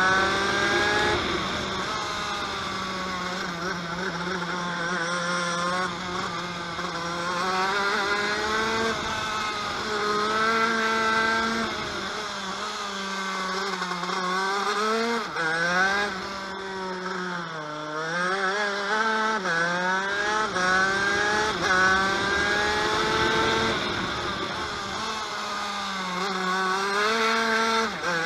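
TM KV92 125cc two-stroke single-cylinder shifter kart engine at full racing load, its pitch climbing in repeated short rises as it shifts up through the gears. The pitch drops lower twice in the middle before it climbs again.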